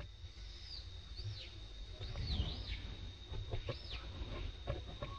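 Infant macaque giving several short, high-pitched squealing calls, each rising and then falling in pitch, over a steady thin high whine.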